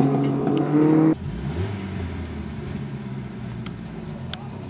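Racing car's engine running hard on a dirt track, revs rising, then cutting off abruptly about a second in and giving way to a fainter, lower engine sound.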